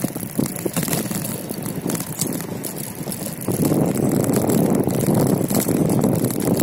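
Wind buffeting the microphone and tyres rolling on asphalt while riding a bicycle along a paved road; the rushing gets louder a little past halfway.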